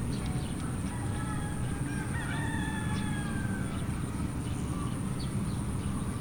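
A rooster crowing, one long drawn-out call from about a second in to past the middle, over a steady low rumble and a faint high whine.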